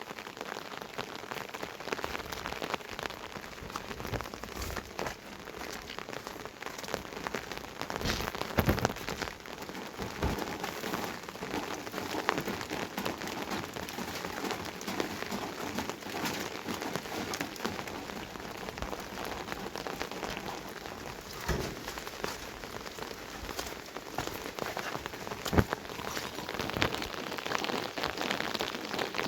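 Heavy rain falling steadily, a dense patter of drops with a few louder single drop strikes.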